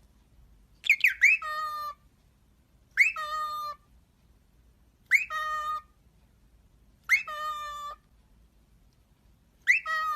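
A pet bird calling five times, about every two seconds: each call is a quick upward whistle followed by a short held note.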